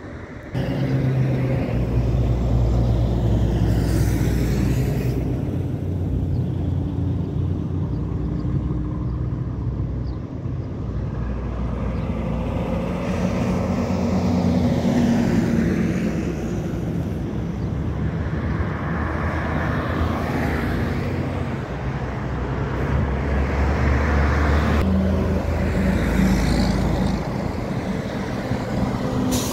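Highway traffic passing close by, cars and heavy trucks sweeping past one after another over a steady low rumble.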